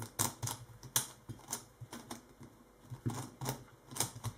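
QiYi QiHeng S Megaminx being scrambled by hand. Its plastic faces are turned quickly, giving an irregular run of sharp clicks and clacks, a few a second.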